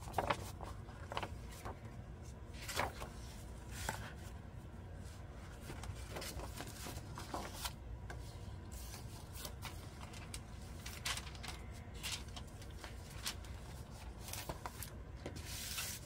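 Loose paper book pages being leafed through and laid down on a cutting mat: scattered soft rustles and taps of paper being handled, over a low steady hum.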